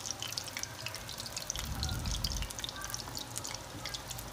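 Mushroom-and-cabbage dough balls deep-frying in hot oil in a steel kadai: a steady crackle of many small pops and sizzles as they fry until crisp.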